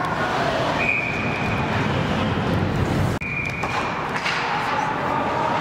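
Ice rink game ambience: a steady wash of crowd and arena noise. A short steady high tone sounds about a second in and again about four seconds in. The background changes abruptly just after three seconds.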